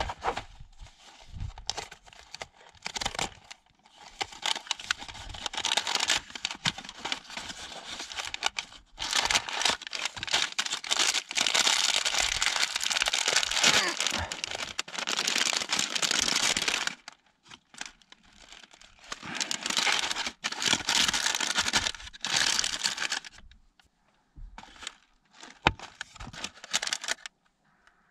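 Small single-serve cereal box being torn open and its inner plastic bag crinkled and ripped, in rustling, crackling stretches of a few seconds with short pauses.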